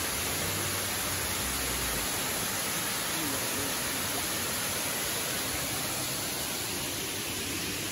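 Steady rushing of a cascading waterfall spilling down rock ledges.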